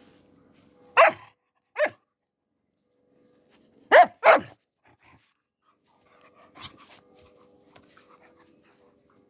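Dobermann puppy barking: four short, sharp barks, one about a second in, another just under a second later, then a quick pair about four seconds in.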